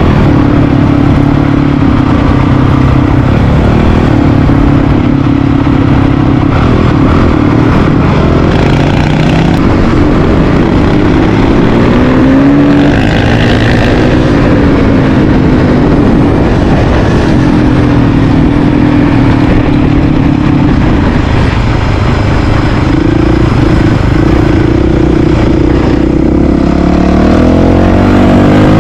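Honda CRF450RL's single-cylinder four-stroke engine running hard on a gravel trail, its pitch climbing and dropping several times as it accelerates and shifts gears, over a steady rush of wind noise.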